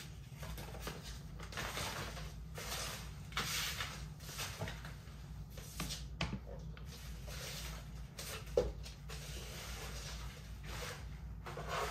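Crumpled plastic wrappers, foil and paper scraps rustling and crinkling as they are gathered up by hand off a floor, in irregular handfuls. A single sharp tap about two-thirds of the way through.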